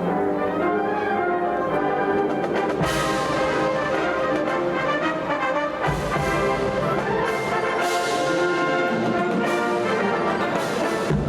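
A large high-school wind band playing, brass to the fore, with cymbal crashes about four times.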